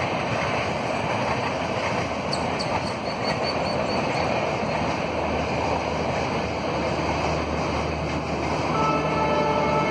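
Passenger train running past on the track, a steady rumble of coaches rolling over the rails, with faint ticking of the wheels about a third of the way in.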